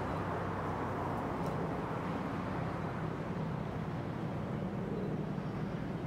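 Steady rumble of distant city road traffic, even throughout with a low hum underneath.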